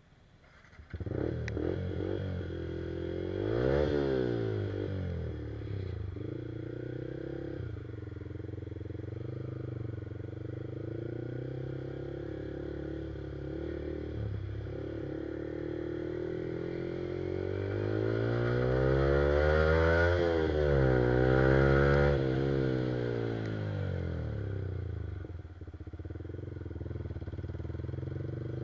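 Yamaha R15 single-cylinder motorcycle engine with an Akrapovic exhaust, heard from the rider's seat. It comes in about a second in, revs up and back down around four seconds, then runs steadily. Between about 17 and 24 seconds it climbs through the revs and falls back, then settles into a steady run again.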